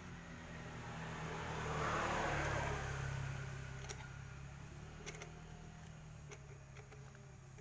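A motor running with a steady low hum. Its sound swells to a peak about two seconds in and then fades, with a few faint clicks in the second half.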